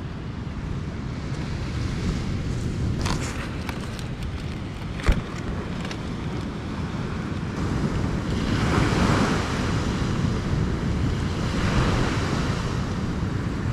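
Wind buffeting the microphone over surf washing on the beach, swelling louder twice in the second half, with a few crackles of banana leaf being folded early on and a single thump about five seconds in.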